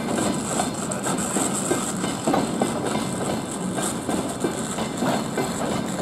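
Electric train running away down the track: a steady rumble of wheels on the rails with scattered short clicks.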